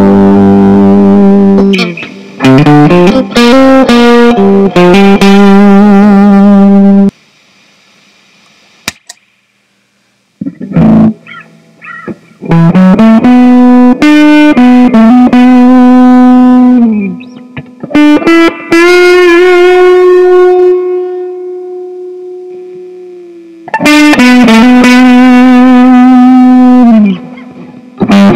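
Squier Mini electric guitar played with distortion, a heavy riff in repeated phrases. There is a pause of a few seconds about a quarter of the way in, and past the middle one note is left to ring and slowly fade.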